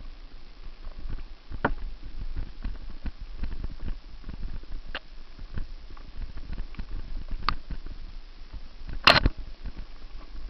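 Mountain bike riding fast over a rough dirt trail: an irregular rattle of knocks and clicks from the bike jolting over bumps, over a low rumble, with one much louder clatter about nine seconds in.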